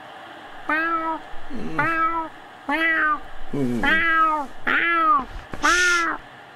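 Cartoon cat meowing insistently for attention, voiced by a person imitating a cat: six meows about one a second, each rising then falling, the last the loudest.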